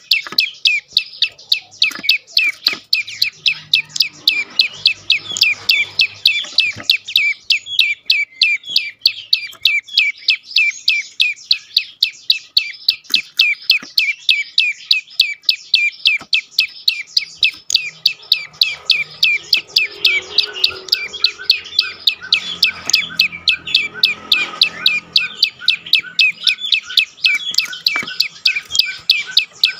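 Prenjak lumut calling over and over, a steady run of sharp, high chirping notes at about three a second, the insistent 'dor' calling.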